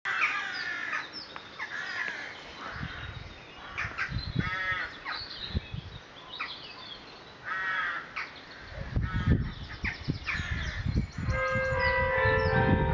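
Birds singing and calling, with harsh repeated calls from crows, and gusts of wind buffeting the microphone. About eleven seconds in, a church carillon starts, its bell tones entering one after another and ringing on together.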